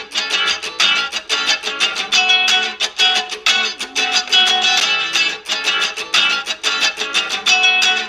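Background music: a quick tune of rapidly plucked notes on a guitar-like string instrument.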